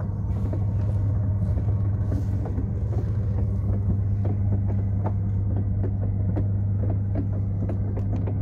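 Roll-off observatory roof in motion: an electric drive motor runs with a steady, low hum while the roof travels along its support beams, with frequent small clicks and knocks from the rolling gear. It runs smoothly over the newly levelled rear support.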